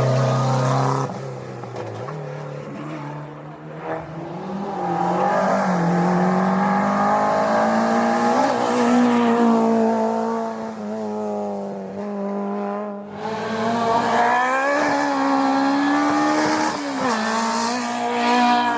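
Historic racing car engine revving hard under acceleration, its pitch climbing and then dropping several times as it shifts through the gears.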